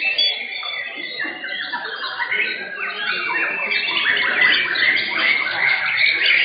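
Several white-rumped shamas (murai batu) singing at once: a dense chorus of overlapping, fast-changing song phrases and calls, growing a little louder in the second half.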